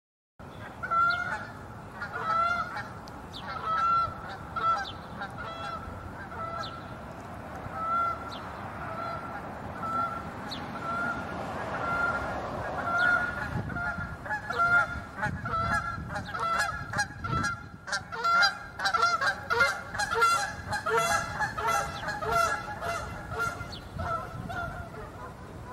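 A flock of birds calling over and over in short, pitched calls, coming thicker and faster in the second half.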